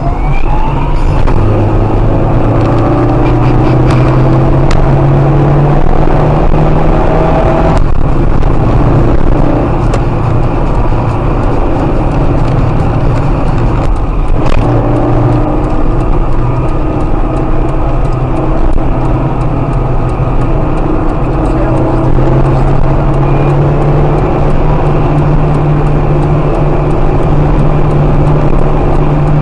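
Car engine and tyre noise heard from inside the cabin while driving fast; the engine note climbs slowly and drops back a couple of times.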